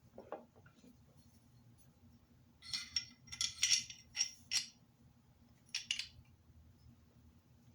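Pistol parts being handled: a quick run of light metallic clicks and scrapes from about three to four and a half seconds in, then two more clicks around six seconds.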